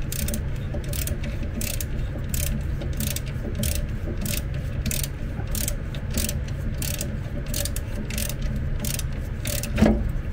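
Hand ratchet wrench clicking steadily, about three clicks a second, as a bolt on a power-wheelchair motor and gearbox mount is backed out. One louder knock comes near the end.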